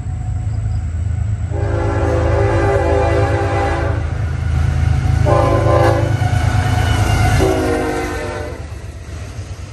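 A CSX freight train led by a GE ES44AH diesel locomotive sounds its air horn in three blasts, long, short, then long, over the low rumble of the locomotives' diesel engines. The rumble grows louder as the locomotives come close and fades a little near the end as they go by.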